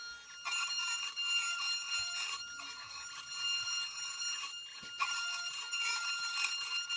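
SainSmart Genmitsu 3018 Pro CNC router carving quarter-inch plywood: the spindle gives a steady high-pitched whine while the bit cuts the wood with a rough rasp. The rasp starts about half a second in, drops away briefly twice and comes back.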